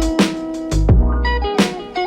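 Background music: guitar over a drum beat with bass.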